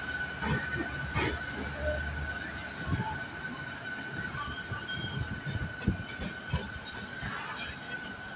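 MEMU electric multiple-unit train running on the line: a steady rumble of the coach with irregular knocks from the wheels and a thin, steady high-pitched whine throughout.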